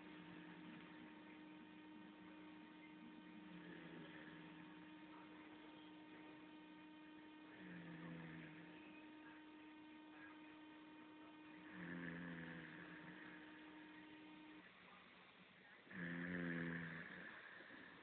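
Snoring, one snore about every four seconds, four in all, each louder than the last. A steady electrical hum runs underneath and stops about three-quarters of the way through.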